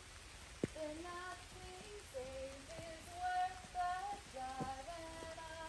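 A woman singing a wordless tune in held, fairly high notes that step up and down, with no instruments. A steady hiss of light rain lies underneath, and a single sharp click about half a second in is the loudest sound.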